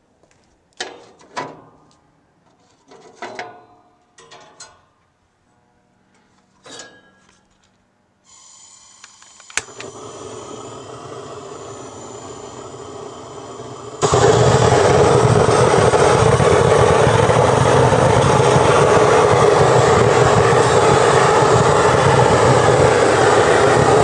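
A few short knocks and clinks, then a steady gas hiss from about eight seconds in and a sharp click as the Grill Blazer Su-V Gun propane searing torch lights. About fourteen seconds in the torch opens to full throttle with a loud, steady roar, blasting flame onto the steak to sear it.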